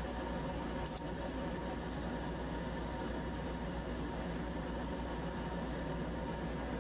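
A steady mechanical hum with low droning tones, running evenly without change.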